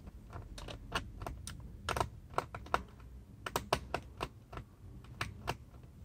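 Small screwdriver working the bottom-case screws of a ThinkPad X230 laptop: a run of irregular light clicks as the tip seats in and turns the screws against the plastic case.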